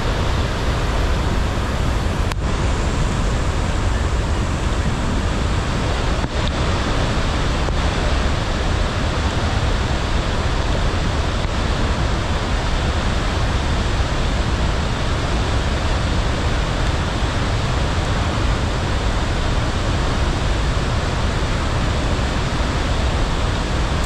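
Steady, unbroken rushing of a wide waterfall in monsoon flood, swollen with heavy rainwater, with a deep low rumble beneath the spray.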